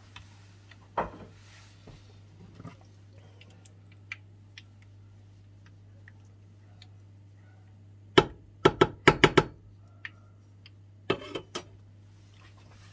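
Hot oil in a frying pan sputtering with faint scattered crackles over a steady low hum, broken about eight seconds in by a quick run of five or six sharp knocks and two more near the end.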